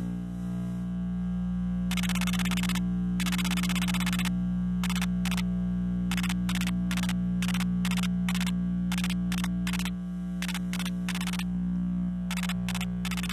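Electrical interference picked up by an RFI probe from electronic devices: a steady low electrical hum, overlaid by two longer bursts of buzzing hiss and then a string of short, regular hiss bursts, about two a second.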